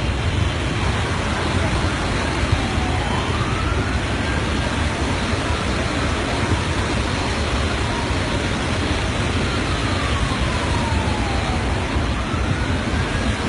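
Floodwater rushing in a flash flood, a loud steady rush of water, with a siren wailing faintly up and down over it.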